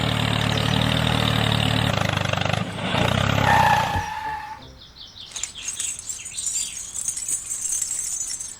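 A small vehicle engine running steadily with a low hum, stopping about four seconds in, just after a short higher beep-like tone. Quiet light clicks and a faint high hiss follow.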